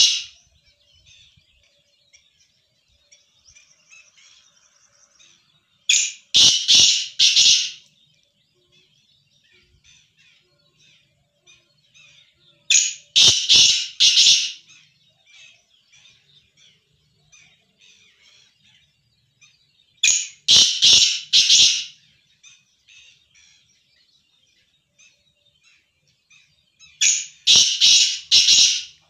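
Caged black francolin (kala teetar) calling: a loud phrase of four or five quick notes about two seconds long, repeated four times roughly every seven seconds. Faint chirping fills the gaps between calls.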